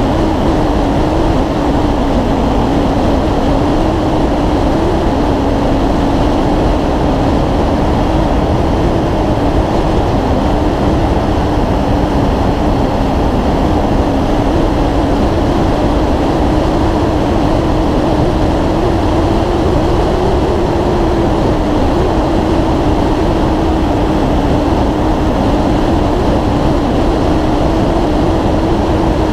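Motorcycle cruising steadily at highway speed: a steady engine drone holding one pitch under heavy wind and road noise.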